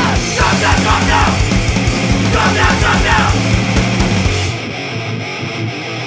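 Loud, fast heavy rock music with a driving beat; the drums and bass drop out about four and a half seconds in, leaving a thinner passage.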